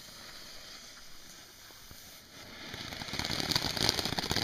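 TNT Mother Nature firework fountain burning, faint at first, then about two and a half seconds in it breaks into dense, rapid crackling that grows louder as it sprays sparks.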